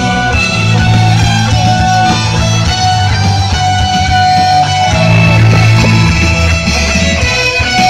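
Live band playing amplified music: electric guitar and violin over a steady bass line, loud throughout.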